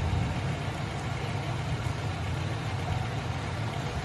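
Steady low rumble with an even hiss above it, engine-like and unchanging throughout.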